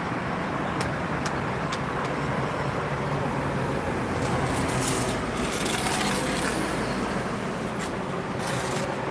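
Steady rumble of road traffic, with a few sharp clicks in the first two seconds and a hissing swell around the middle.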